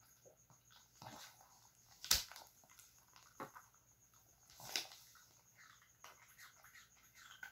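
Shih Tzu x Pekingese dog eating a small round biscuit off a plastic sheet: four short, sharp crunching and crackling sounds, the loudest about two seconds in.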